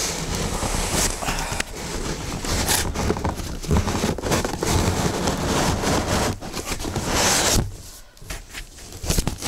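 Packaging being handled and pulled open: scraping, crinkling and knocking. It goes quieter for a second or so near the end.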